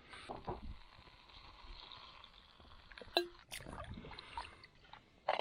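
Camp cookware being handled: scattered small knocks and clicks over a faint steady hiss, with one sharper clink about three seconds in that rings briefly.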